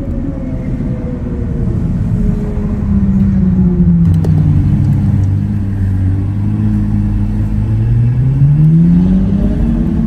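Ferrari 812 Superfast's V12 engine running at low revs. Its note falls and settles low, then rises near the end as the car revs up and pulls away.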